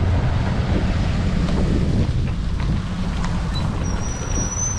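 Wind buffeting the microphone, a steady low rumble, with a thin high squeal near the end.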